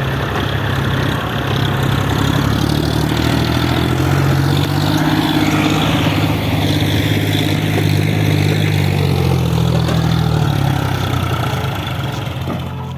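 JCB 3DX backhoe loader's diesel engine running steadily, then revving up under load from about four seconds in and easing back down near the end as the machine works.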